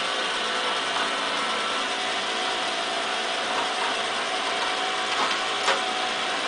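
Splashers toy fishing game running: its small electric motor and plastic gears turn the pond with a steady mechanical whirr, with a faint tick or two near the end.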